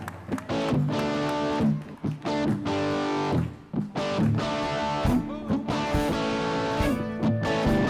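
Worship band playing an instrumental passage between sung lines, led by electric guitar with bass guitar underneath.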